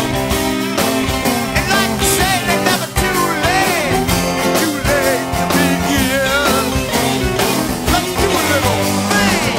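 Rock band playing an instrumental break: a lead line with bent, wavering notes over a steady drum beat, bass and rhythm guitar.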